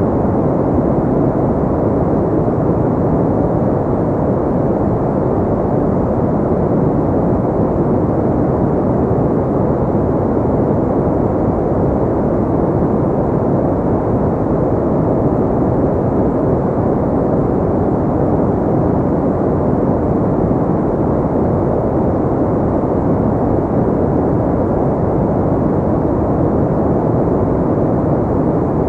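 Steady pink noise: an even, unchanging rush of noise, deep and dull, with little high hiss.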